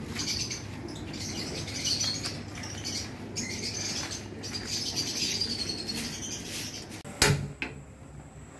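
Small birds chirping and twittering over a low steady background rumble, with one sharp knock about seven seconds in.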